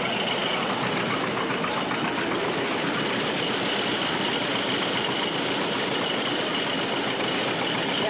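Steady mechanical running noise, like an engine or machine running without a break, with a thin steady high whine over it.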